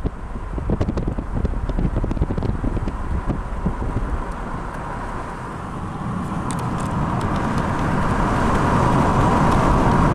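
Car driving: steady road and wind noise with a low rumble and small knocks, growing louder near the end.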